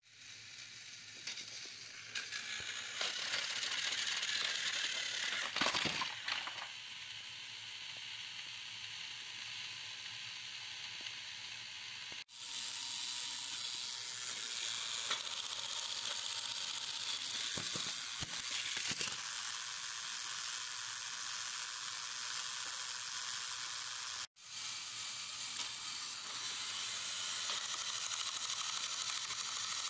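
Battery-powered Plarail toy trains running on plastic track: a steady high whir of small electric motors and gearing, with a light rattle of wheels on the track. It stops for a moment twice, and there is a brief knock about six seconds in.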